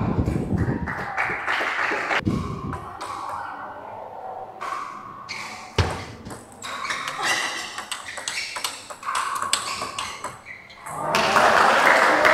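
Celluloid-style table tennis ball being struck by the paddles and bouncing on the table in quick, sharp clicks during rallies. A louder stretch of steady noise comes in near the end.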